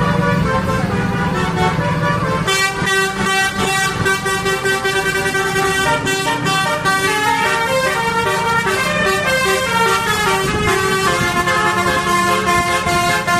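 Indonesian 'telolet' multi-tone bus horns playing a tune: a rapid run of changing horn notes that starts about two and a half seconds in. A low steady rumble, like the buses' engines, comes before it.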